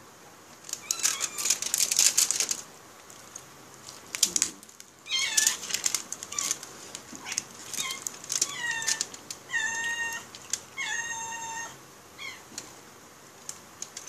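A cat meowing again and again, begging for the chicken being eaten. It gives a string of short meows over several seconds, some falling in pitch. Before the meows, about a second in, comes a loud burst of crackly rustling.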